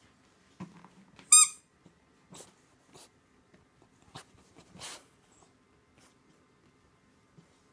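A squeak toy squeaks once, short and high-pitched, about a second and a half in; this is the loudest sound. Around it come a few soft, brief rustles and breathy puffs.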